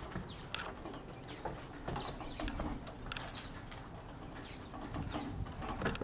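Scattered short bird chirps, each falling quickly in pitch, with a few light clicks over a faint outdoor background.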